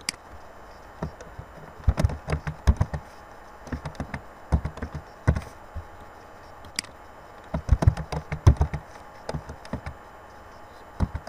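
Computer keyboard being typed on in two quick runs of key clicks, about two seconds in and again around eight seconds, with single taps scattered between. A mouse click comes right at the start.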